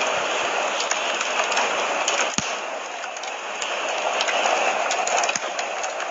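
Wood fire crackling in a fireplace: a steady hiss with scattered pops and one louder snap about two and a half seconds in.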